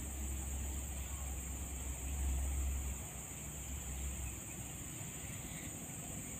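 Outdoor background: a low rumble that fades out three to four seconds in, over a steady high-pitched hiss.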